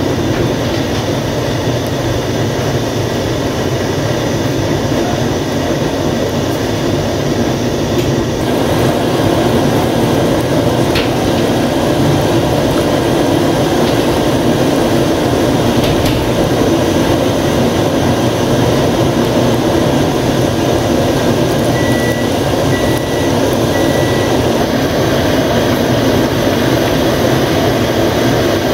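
Chicken pakoras deep-frying in hot oil in a kadai: a steady, loud sizzle that grows louder about eight seconds in as the pan fills with bubbling batter.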